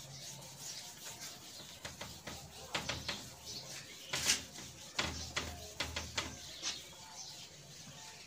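Marker writing being wiped off a whiteboard by hand: a run of irregular rubbing strokes against the board's surface, which stop near the end once the board is clean.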